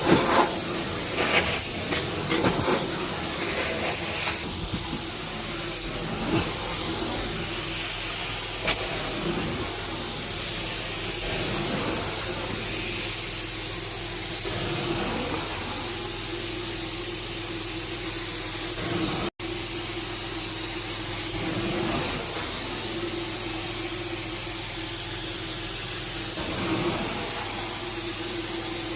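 Carpet cleaning extraction wand hissing as it sprays and sucks up water, drawn over the carpet in repeated strokes every two to three seconds, over the steady hum of the cleaning machine.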